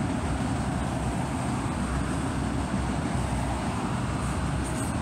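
Auto rack freight cars rolling past on the rails, a steady low noise of steel wheels on track.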